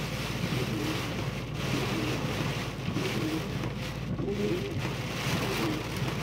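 Hurricane wind and driving rain beating on a car, heard from inside the cabin, rising and falling in gusts over a steady low hum.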